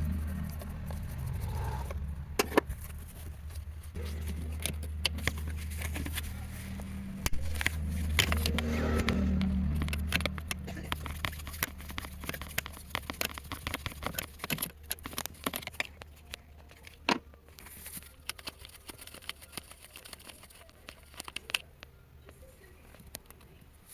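Metallic clicks and taps from parts and tools being handled, scattered irregularly, over a low steady hum that fades in the second half.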